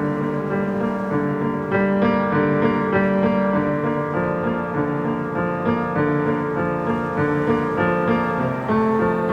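Background music: a piano melody with sustained notes changing about once a second.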